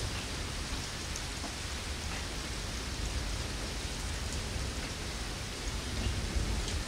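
Rain falling steadily, an even hiss of drops on surfaces.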